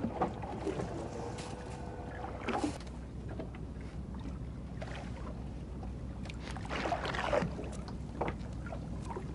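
Steady low hum aboard a small fishing boat, with scattered small clicks and knocks of fishing gear being handled. Louder rustles come about two and a half seconds in and again around seven seconds.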